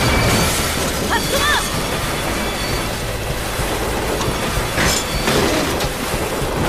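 Animated-battle sound effects: crashing and shattering debris over a dense, steady rumble, with a sharp impact about five seconds in.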